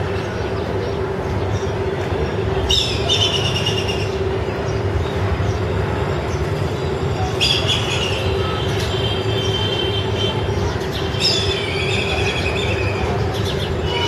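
Steady mechanical rumble with a constant low hum. Birds call over it three times, in harsh high calls lasting a second or two each: about three, seven and eleven seconds in.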